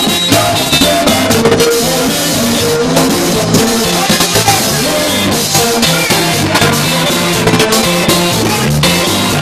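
Haitian konpa band playing live: a steady drum-kit beat over a repeating bass line, with guitar, loud and continuous.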